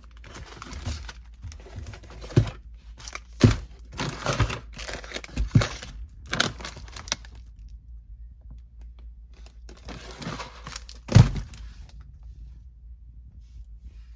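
Handling of pantry items: plastic crinkling and rustling with irregular knocks of bottles and plastic containers being moved on the shelf, and one louder knock about eleven seconds in.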